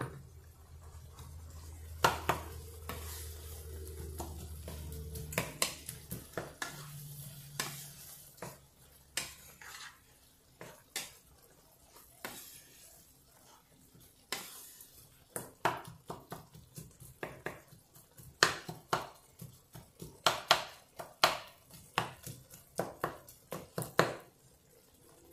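Wooden spatula stirring and scraping a masala in a nonstick frying pan, with repeated taps and knocks against the pan that come thicker in the second half, over a faint sizzle of the masala frying in oil.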